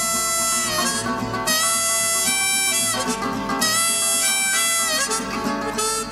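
Harmonica solo over acoustic guitar in a blues song, long held notes that bend at their ends.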